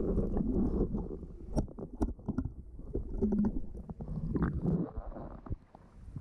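Underwater sound of a scuba dive: low rumbling and gurgling, broken by scattered sharp clicks and knocks.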